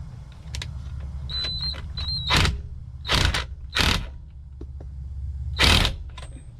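Ratchet wrench clicking in four short strokes on the steering wheel's centre nut, with a few small squeaks and clicks before, over a steady low hum.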